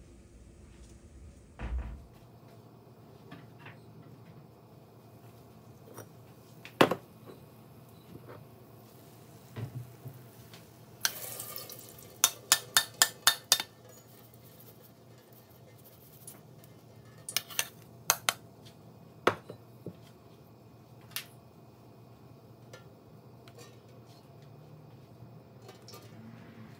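Metal utensils clinking and knocking against a large aluminium cooking pot, with single knocks scattered through and a quick run of about six taps about halfway through, as a metal strainer of fried onions is knocked against the pot to drain its oil.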